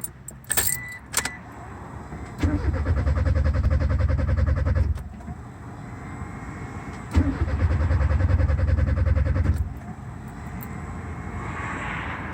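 Car starter cranking the engine twice, each time for about two and a half seconds in an even rhythm, after a jingle of keys at the ignition. The engine does not catch on the first try, which fits a no-start problem.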